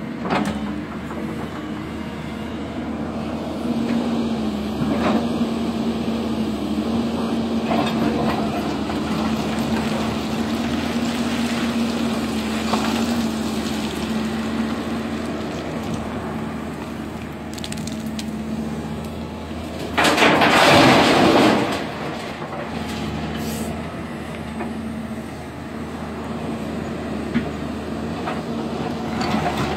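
Hyundai 170W wheeled excavator's diesel engine and hydraulics running steadily under load while its bucket digs into broken quarry stone, with scattered knocks of rock. About two-thirds through comes a loud rush of tumbling stone lasting about two seconds, a bucketload being dumped.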